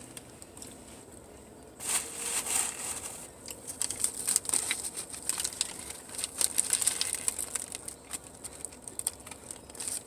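Paper sandwich wrapper crinkling and rustling in irregular bursts, starting about two seconds in.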